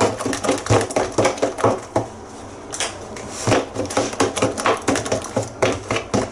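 Metal fork beating a thick batter in a plastic bowl: rapid clicking strokes of the fork against the bowl, about four a second, with a brief lull about two seconds in.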